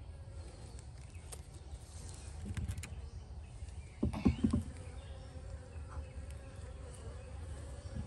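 Honeybees buzzing around the hive in a steady hum, with a few small clicks and then a cluster of heavy knocks about four seconds in as the rock is lifted off the hive lid and set down.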